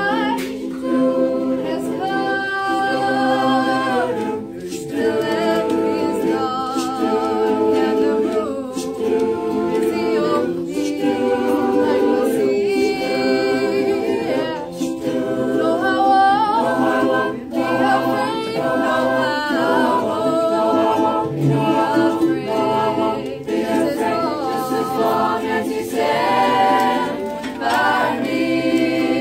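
High school vocal ensemble of men's and women's voices singing a cappella in harmony, with several sustained voice parts at once.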